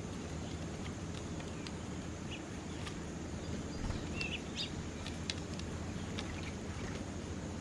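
Small birds giving short, scattered chirps, a cluster of them about halfway through, over a steady low background rumble.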